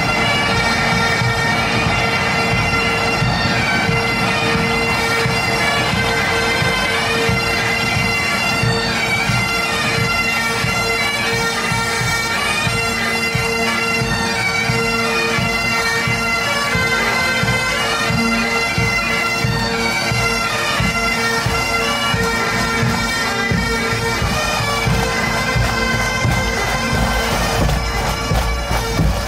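Massed Great Highland bagpipes playing a march tune over their steady drone, with pipe-band snare and bass drums beating beneath.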